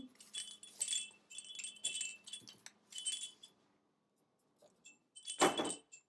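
Small bell inside a soft fabric cow rattle toy jingling in repeated short bursts as the toy is swung about with the parrot gripping it. After a pause of about a second, a louder jingle with a dull knock comes near the end.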